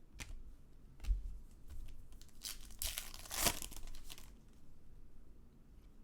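Trading cards being handled and flipped through by hand, a run of small clicks and crinkling rustles, with a denser, louder rustle about two and a half to three and a half seconds in.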